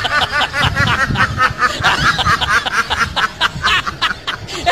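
Duck calling in a fast, unbroken run of quacks, about five or six a second, that sounds like laughter.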